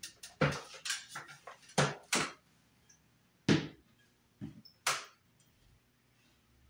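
A run of quick sharp clicks and knocks, then three louder separate knocks around the middle, from hands working with hard parts at a wall.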